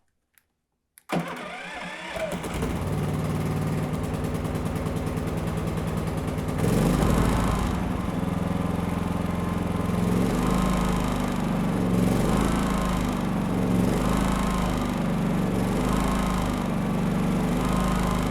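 Pulsar G450RN inverter generator engine starting on its electric start about a second in, catching at once and running. About six seconds in it drops to a louder, lower note and then rises and falls regularly about every two seconds.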